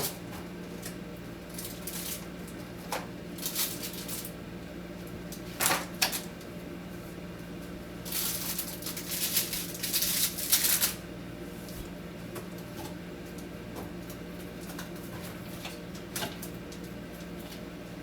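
Clatter and knocks of food items and plastic containers being handled and moved while a fridge shelf is emptied, with a dense run of rattling about halfway through. A steady low hum lies underneath.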